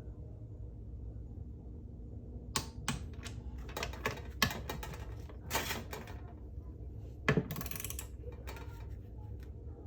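Scattered metallic clicks and ticks of a torque wrench with a 10 mm socket, tightening bolts on a 4L60E transmission to 120 inch-pounds, over a steady low hum.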